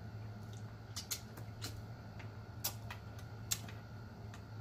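Close-miked mouth sounds of chewing and sucking chicken feet: irregular sharp clicks and lip smacks, about a dozen, over a faint steady low hum.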